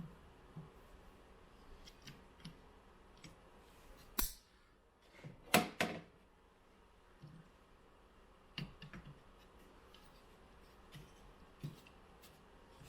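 Scattered small clicks and knocks of soundbar parts being handled and fitted during reassembly, with a louder knock about four seconds in and two or three sharper clacks soon after.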